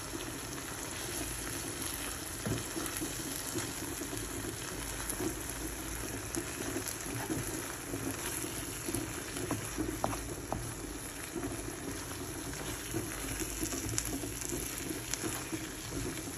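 Mince and four-bean mix cooking in a frying pan, sizzling and bubbling steadily, with a spoon stirring through it and a few light clicks of the spoon against the pan.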